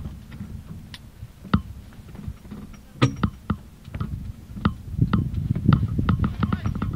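Wind rumbling on the microphone of a hang-glider-mounted camera, with scattered sharp clicks and knocks from the glider held on the ground; the rumble grows louder over the last two seconds.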